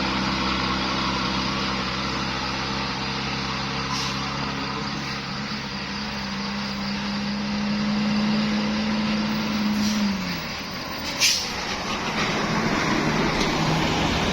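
A bus's diesel engine running, its note holding steady and then dropping in pitch about ten seconds in as the bus goes by. It is followed by a brief, sharp hiss.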